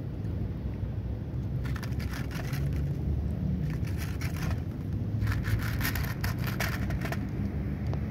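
Cat crunching dry kibble in three bursts of fine crackling, over a steady low rumble of wind on the microphone.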